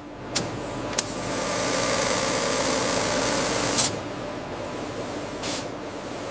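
Two sharp clicks, then a loud steady hiss for about two and a half seconds that cuts off with another click, like a spray or air jet being triggered. A softer hiss and a low mechanical hum run underneath.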